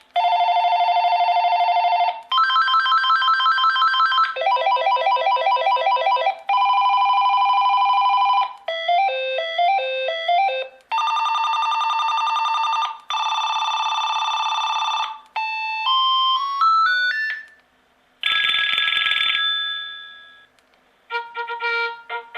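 VTech DS6361 cordless phone playing its ringer tones one after another, each about two seconds long: warbling trills, short electronic melodies, a rising run of notes and a harsher buzzing tone. The tones are loud, played with the ringer volume turned all the way up, where the phone's speaker distorts.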